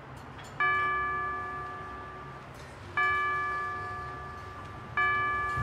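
A bell chime struck three times, about two seconds apart, each note ringing out and fading slowly.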